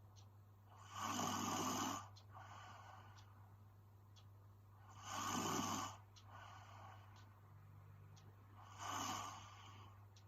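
A young woman snoring in her sleep: three loud snores, about one every four seconds, each followed by a quieter breath out. A steady low hum runs underneath.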